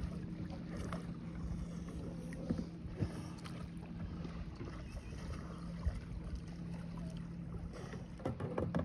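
Small waves lapping against a kayak's hull, with wind on the microphone, a steady low hum and a few light knocks.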